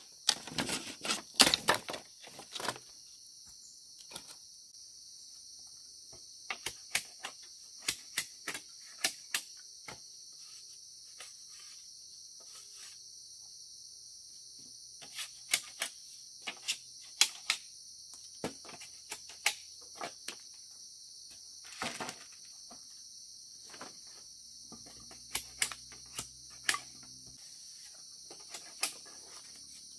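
Steady high-pitched insect chorus, with irregular sharp taps and knocks over it, some in quick clusters, loudest in the first couple of seconds.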